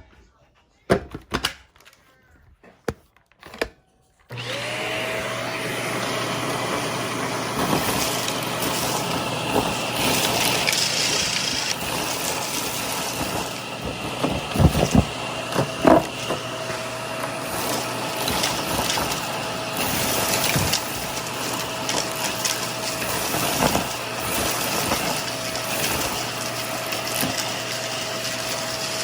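A few light knocks, then about four seconds in a vacuum cleaner switches on, its motor whine rising to a steady pitch, and runs steadily with a few sharp clicks near the middle.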